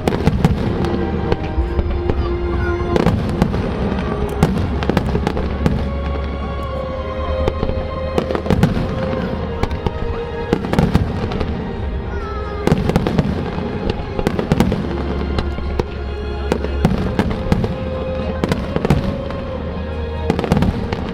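Aerial fireworks shells bursting in quick succession, with sharp bangs and crackle, over music playing throughout.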